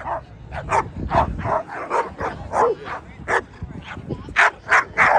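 A dog barking over and over, about two short barks a second, the barks getting louder near the end.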